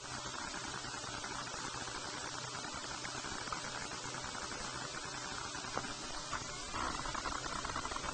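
Steady hiss and crackle of a police cruiser's dashcam audio, a steady noise with a few faint clicks, growing a little louder about seven seconds in.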